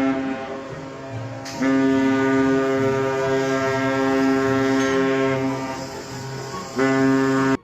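A loud, steady horn-like blast, struck again about one and a half seconds in and once more near the end, then cutting off suddenly, with lower music notes changing underneath.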